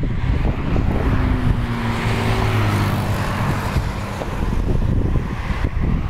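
A motor vehicle passing close by: a low engine hum dropping slightly in pitch, and road hiss that swells about two seconds in and fades toward the end. Wind buffets the microphone throughout.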